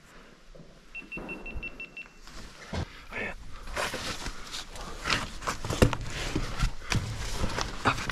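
A short run of rapid, high electronic beeps lasting about a second, then a stretch of irregular scuffs, knocks and thuds from people moving about, such as footsteps on debris and gear being handled.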